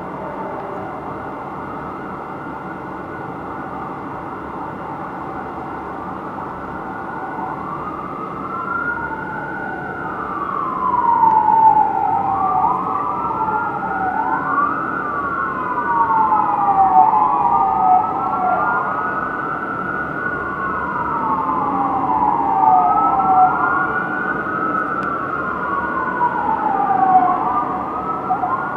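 Wailing sirens of responding fire apparatus, an engine and a quint: slow rising and falling sweeps, two overlapping out of step, that begin about a quarter of the way in and grow louder over a steady hum of city traffic.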